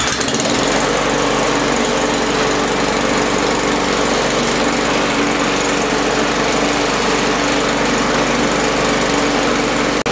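Yard Machines push mower's MTD Powermore engine catching on the pull and running steadily, shaking the whole mower hard: the blade is bent.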